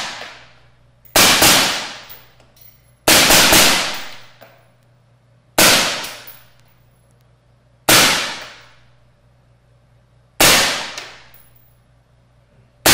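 AR-15-style rifle fired in slow single shots, about eight in all, two of them as quick pairs near the start. Each shot echoes and dies away over about a second in the enclosed indoor range.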